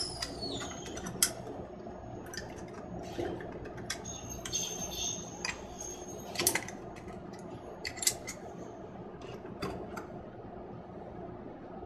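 Metal parts of a door knob lockset clicking and clinking as the handle is worked off, with scattered sharp clicks and a short falling squeak of metal near the start.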